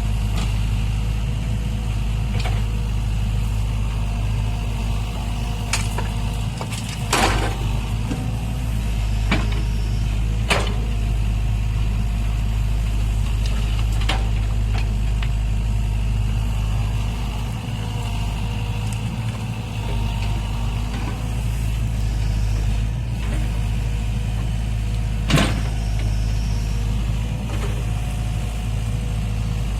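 Heavy diesel machinery engine running steadily with a deep rumble, with a few sharp knocks and clanks at scattered moments.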